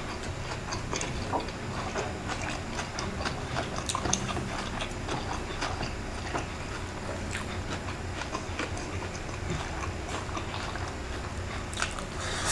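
Eating sounds of crispy chicken skin and fried rice being chewed: irregular wet mouth clicks and smacks, with a louder click near the end.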